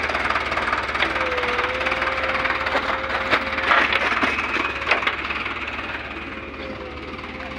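Tractor diesel engine running at idle, with a thin steady whine and scattered clicks; it gets somewhat quieter over the last two seconds.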